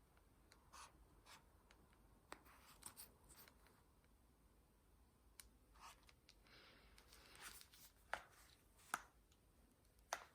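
Faint handling of packaging during an unboxing: light rubbing and scattered small clicks, with a short rustle and then a few sharper clicks in the second half.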